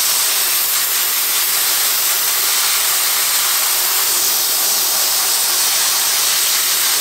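Compressed air from an air compressor's blow nozzle hissing in a loud, steady blast, blowing moisture out of a freshly sanded crack in a Lexan RC car body.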